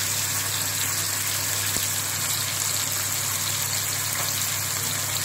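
Tomato wedges frying in hot oil in a pan, giving a steady sizzle.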